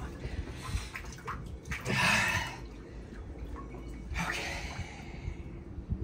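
Cold water sloshing in a chest-freezer ice bath kept at about 8 °C as a man settles into it. Two loud, sharp breaths come through it, about two seconds in and again just after four seconds, his breathing under cold shock. A few low bumps sound near the end.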